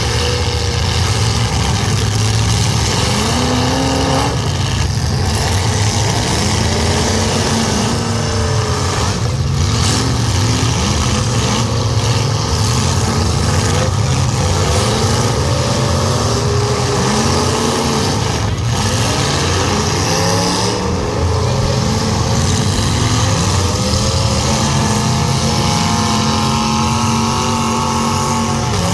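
Several demolition derby cars' engines revving hard, the pitch rising and falling over and over above a loud, steady low engine note. A few sharp crashes of metal are heard as cars collide.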